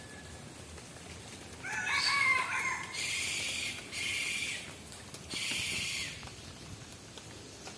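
Rooster crowing: a pitched call beginning just under two seconds in, followed by three short, harsh, noisy bursts, over a faint steady background hiss.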